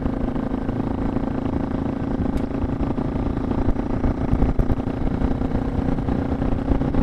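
Suzuki DR650's single-cylinder four-stroke engine running steadily under way, with an even pitch and a low rumble of road and wind noise.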